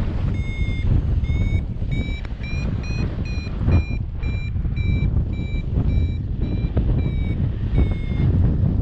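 Paragliding variometer beeping about twice a second, signalling that the glider is climbing in lift. The beep pitch rises a little and then eases back, and the beeping stops near the end. Wind rushes over the microphone underneath.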